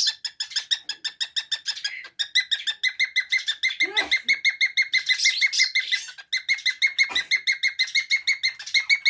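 A young falk (Australian parakeet) chattering in its fast 'ngekek' call: a continuous string of short, sharp, high repeated notes, about eight a second.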